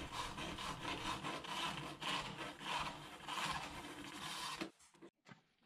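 Hacksaw sawing through the button posts of a Grohe Grohtherm SmartControl shower valve, in rasping back-and-forth strokes that stop near the end.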